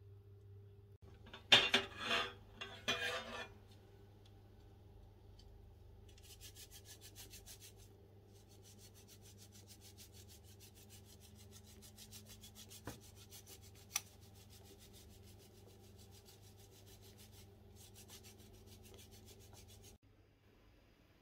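Streusel crumbs scattered by hand onto a pudding-covered apple cake: a long, fine crackling rustle, after a few loud rubbing scrapes about two seconds in. A faint steady hum runs underneath.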